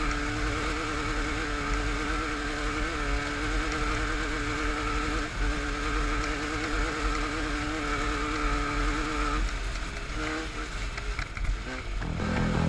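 Off-road race vehicle engine running at a steady high speed with a slight wobble in pitch. About nine and a half seconds in it eases off, with a few short blips.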